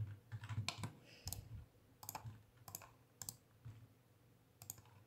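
Computer keyboard keys tapped, faint, irregular clicks about a dozen times, used as shortcut keys to move and rotate objects in Blender.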